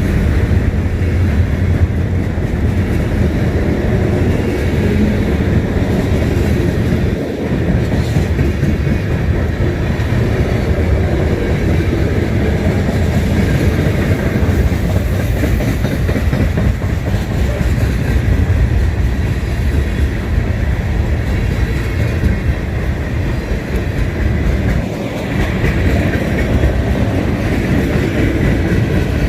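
Train cars rolling past close by, a steady rumble with the wheels clicking over the rail joints.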